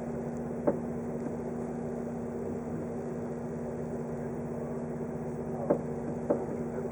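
Steady hum inside a 583 series electric train car, with a low even tone throughout, broken by three short sharp clicks, one near the start and two close together near the end.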